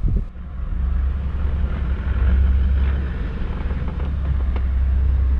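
Toyota LandCruiser 79 series four-wheel drive driving along a sandy track, heard from inside the cab: a steady low engine and drivetrain rumble with tyre and road noise, and a couple of light ticks near the end.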